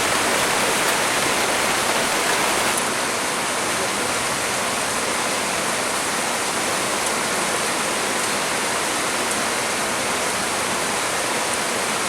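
Heavy rain pouring steadily, a dense even hiss that eases slightly about three seconds in.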